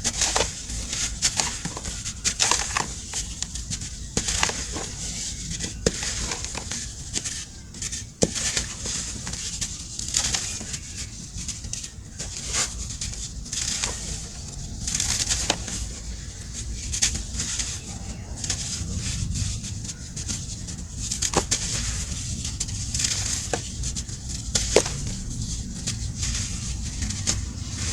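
A brittle material crumbled close to the microphone: irregular crisp crunches and crackles, with an occasional sharper snap.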